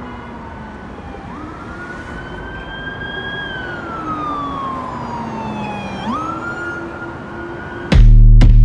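A siren wailing in long sweeps, its pitch sliding down, jumping back up and falling again. Near the end a loud hip-hop beat kicks back in.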